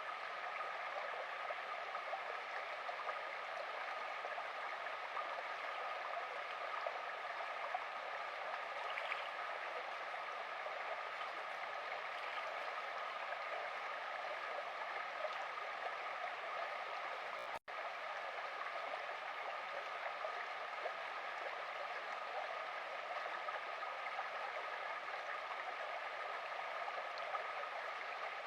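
Small stream of running water, a steady rushing and gurgling. It cuts out for an instant about two-thirds of the way through.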